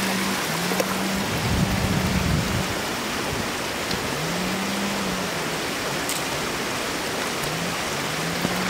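A steady, even hiss of water, with a low wavering hum that comes and goes underneath.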